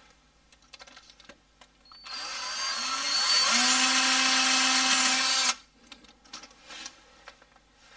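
Cordless drill running in reverse with a left-handed drill bit on a broken timing-cover bolt. The motor starts about two seconds in, rises in pitch, settles to a steady speed and cuts off suddenly after about three and a half seconds, with a few light clicks of handling before and after.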